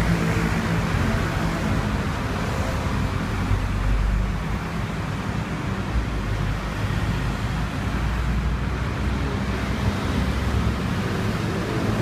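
Steady street traffic noise: a continuous low rumble of passing vehicles, with a faint hum running through it.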